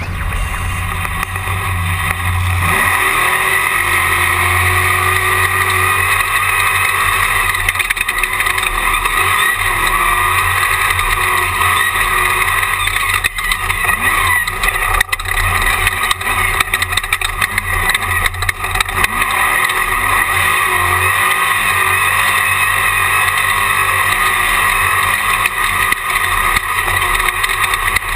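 Onboard sound of a Jimco Class 1 desert race car at speed: the engine runs hard under load, its pitch rising and falling as the driver works the throttle, over a heavy rush of wind and terrain noise. It grows louder about two and a half seconds in, and a few sharp knocks come through near the middle.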